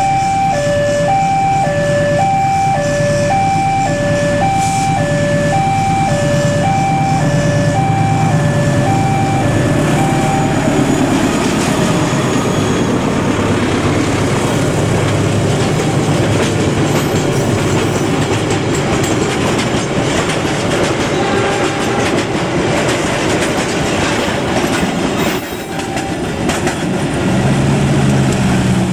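Level-crossing warning alarm sounding two alternating tones, each about half a second long, as a locomotive-hauled ballast hopper freight train arrives; the alarm fades under the train noise about ten seconds in, and the hopper wagons rumble and clatter steadily over the rails.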